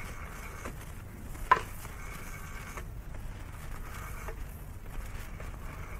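Telephone sound effect as a call is placed: a sharp click about a second and a half in, then several short stretches of buzzing from the phone, over the low hum of an old recording.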